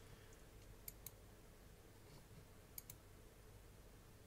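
Faint computer mouse clicks: two quick pairs, one about a second in and one near three seconds in, over a faint steady hum.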